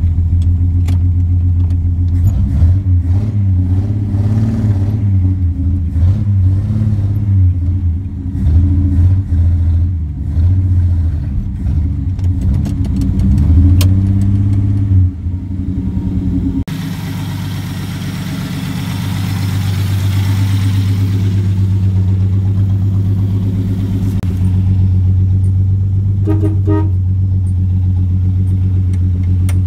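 1960 Plymouth Valiant's slant-six engine running with no muffler, revved unevenly on the throttle pedal for about the first half, then idling steadily.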